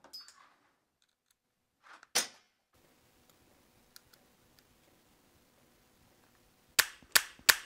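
Sharp clicks from handling an airsoft gas blowback pistol and refitting its loose red dot sight to the slide: one click about two seconds in, a few faint ticks, then three loud clicks in quick succession near the end.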